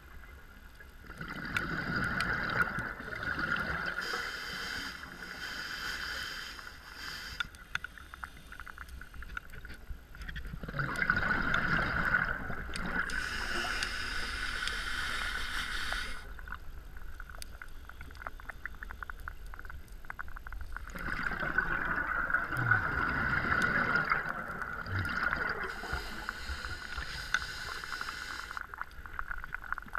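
Scuba diver's regulator breathing heard underwater: three breaths about ten seconds apart, each a few seconds of bubbling and hissing air, with quiet in between.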